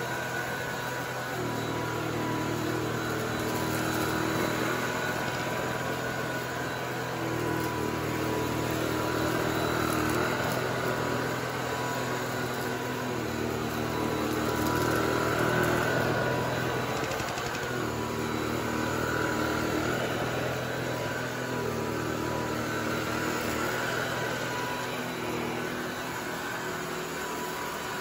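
Kalado cordless vacuum cleaner's motor running steadily as it is worked over a carpet rug. Its hum swells and eases every four to five seconds.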